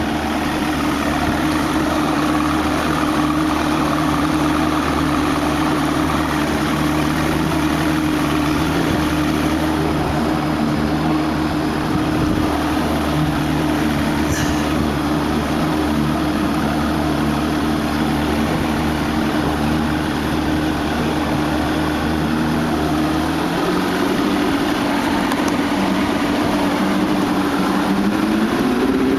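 1979 Johnson 100 hp two-stroke V4 outboard running steadily at low speed. Near the end its note rises as the throttle is opened.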